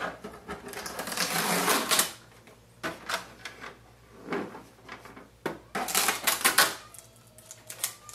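Packing tape being peeled off a new Canon MAXIFY GX3020 printer, a rasping stretch in the first two seconds, followed by scattered plastic clicks and knocks as the scanner lid is lifted and handled.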